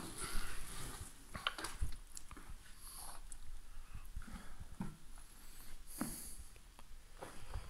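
Footsteps crunching and scuffing on loose rubble and fallen plaster, with scattered small knocks and scrapes.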